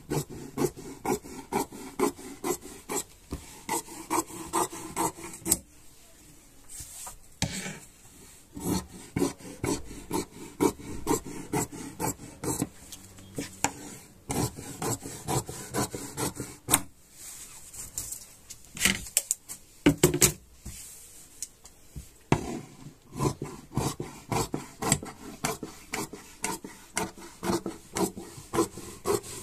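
Large tailor's shears cutting through folded trouser fabric, the blades snipping about twice a second with a few short pauses.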